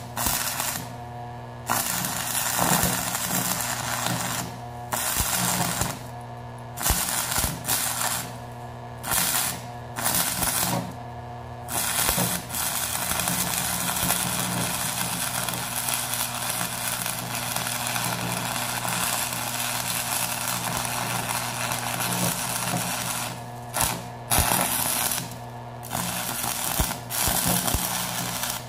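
Stick welder arc crackling and sizzling as weld is laid on a steel plate, in runs of a few seconds broken by several short pauses where the electrode is lifted and struck again, with one unbroken run of about ten seconds in the middle. A steady low hum runs underneath.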